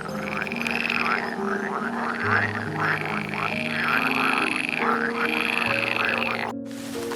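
An animal calling in rapid, repeated pulsing calls that come in cycles of about a second, over background music with low held notes. The calls cut off abruptly near the end.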